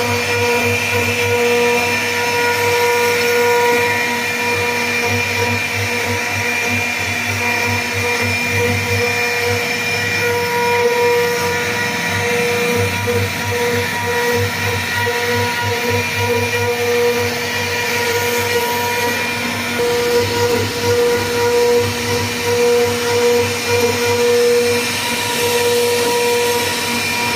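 CNC router spindle running with a steady whine as it carves a teak panel, its loudness wavering more in the last third as the cutting load changes.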